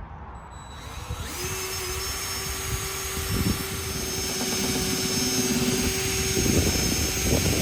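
Cordless drill drilling out the pop rivets that hold a Ford Ranger door handle. The motor starts about a second in and runs with a steady whine that grows slowly louder.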